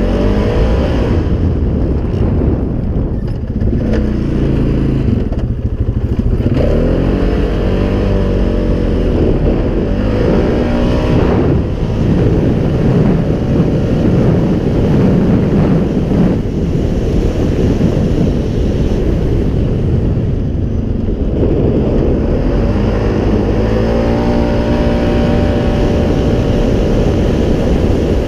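Polaris Sportsman 570 ATV's single-cylinder engine, fitted with an EPI clutch kit, running under load while riding, its pitch rising and falling again and again as the throttle is opened and eased off, over steady wind noise.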